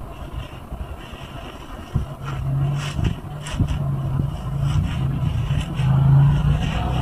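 A soapy yellow car sponge squeezed by gloved hands in thick suds, giving wet squelches and crackling foam several times. Under it runs a low steady hum, louder from about two seconds in.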